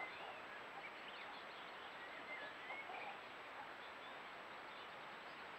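Faint outdoor birdsong: short chirps and warbled notes from small songbirds, busiest in the first three seconds, over a steady hiss and a thin, steady high tone.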